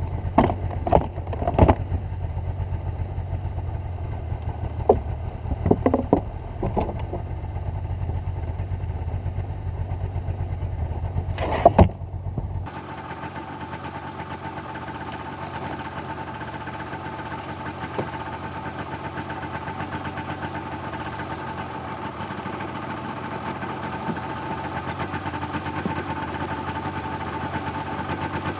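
Snowmobile engine running steadily at idle, with several sharp knocks and thumps from gear being handled in the wooden sledge during the first half. About halfway through the sound changes abruptly to a steadier, hissier engine drone.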